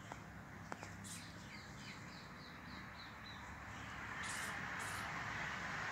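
Faint bird calls: a run of short falling chirps, about three a second, lasting roughly two seconds. Under them is a low background hiss that grows a little louder near the end, and there are a couple of faint clicks near the start.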